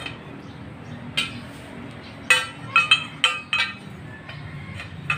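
Steel pipe and angle bar knocking together as the pipe is laid into the angle for straight alignment. They give sharp, ringing metallic clinks: one about a second in, a quick run of five in the middle, and another near the end.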